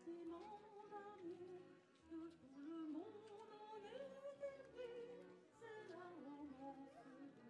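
A woman sings a melody into a handheld microphone, over an accompaniment with short low bass notes recurring beneath her voice.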